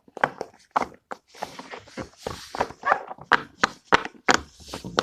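Silicone pop-it fidget toy having its bubbles pressed: a quick, uneven run of sharp pops, several a second.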